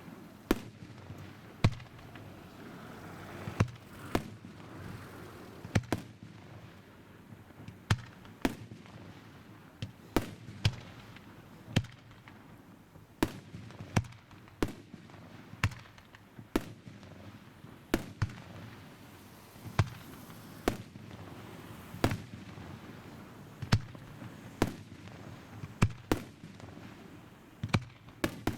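Fireworks bursting in a long series of sharp bangs, roughly one a second at uneven intervals, some coming in quick pairs.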